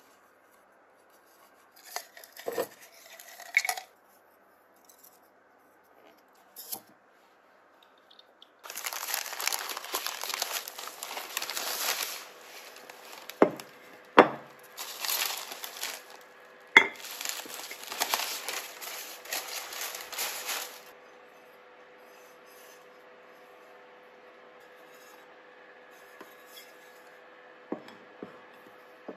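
Bubble wrap and plastic packaging crinkling and tearing in two long stretches as items are unwrapped, broken by a few sharp knocks of a ceramic plate on the tabletop.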